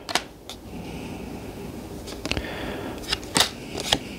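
Paper player cards being sorted by hand over a felt-covered table: a handful of light, sharp taps and flicks as cards are thumbed through and set down.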